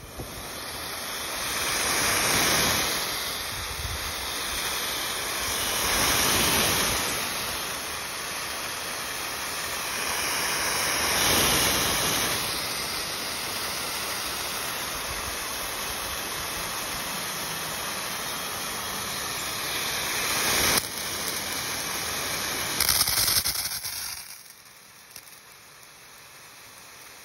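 Orbit quarter-pattern plastic pop-up sprinkler spraying water from a garden hose, a steady hiss of spray that swells louder several times and drops much quieter near the end.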